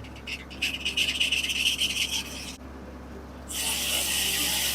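A 1950 Corley circular sawmill blade cutting through a log with a steady hissing rasp over the low hum of the mill. The cutting sound drops away for about a second just past halfway, then comes back.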